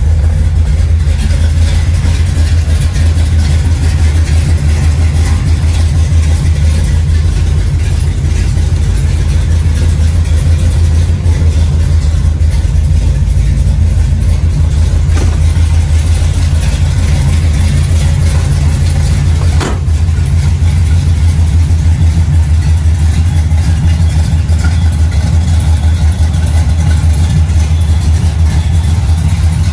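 Chevrolet 454 big-block V8 idling steadily with a deep, even rumble.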